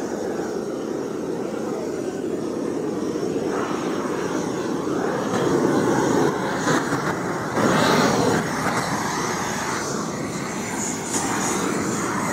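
Gas weed-burning torch, a gas burner rigged as a flame gun, burning steadily with a constant rushing noise, louder in two surges about six and eight seconds in.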